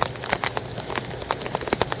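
Rain falling close by, with raindrops striking a hard surface as many sharp, irregular ticks over an even hiss.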